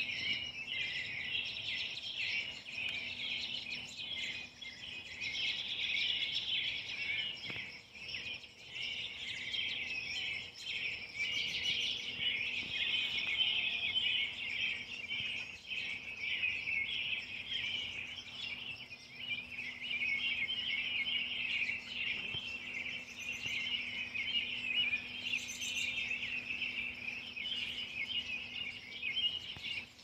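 Many birds chirping and chattering at once in a dense, continuous evening pre-roost chorus.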